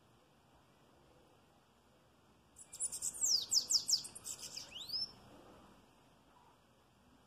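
A caged bananaquit (sibite) sings one high, rapid song a few seconds in: a quick run of sharply falling notes that ends in a couple of rising notes, about two and a half seconds long.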